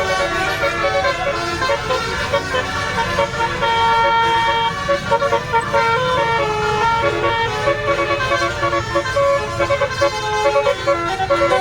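Bus telolet Basuri multi-tone air horn playing a melody: several horn trumpets sound held notes that step from pitch to pitch in quick succession, over a low rumble.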